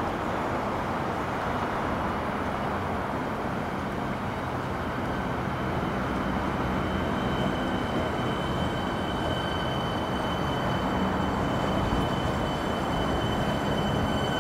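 Siemens Nexas electric train pulling slowly into a station platform: a steady rumble of wheels and running gear on the rails. A few seconds in, a high steady whine comes in and grows louder as the train draws closer.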